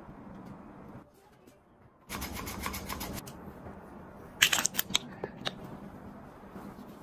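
Close-up baking prep sounds: about two seconds in, a second of loud crackly scraping, then sharp ticks and clinks a little after four seconds in as sugar and salt are tipped from a small glass into a glass bowl of flour. After that comes the soft, steady rubbing of a gloved hand working butter into the flour.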